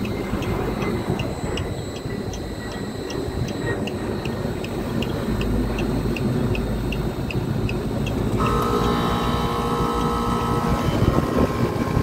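Carrier rooftop unit running steadily with a light regular ticking. About eight seconds in, a scroll compressor starts as its contactor is pushed in and runs with a steady humming tone. The compressor is turning backwards because of reversed phase rotation.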